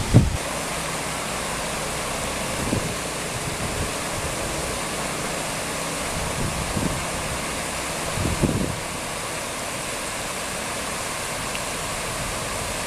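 Floodwater rushing steadily over a road's edge, with a few low gusts of wind on the microphone.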